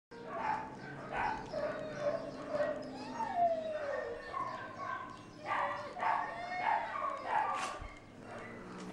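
Dogs yipping and whining: a run of short, high calls with sliding pitch, overlapping one another, with one longer falling whine about three seconds in.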